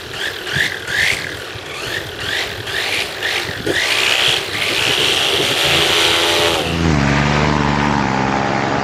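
Paramotor engine revved in short rising bursts while the wing is held overhead, then held at high revs for the takeoff run from about four seconds in. The pitch drops lower about seven seconds in.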